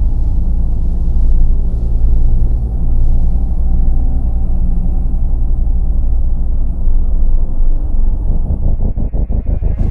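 Deep, loud rumbling drone of a horror-style intro soundtrack. In the last second or so it breaks into a rapid fluttering pulse.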